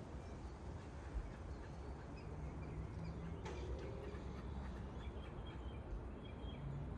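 Outdoor heat pump condensing unit running with a low, steady hum, with a few faint bird chirps over it.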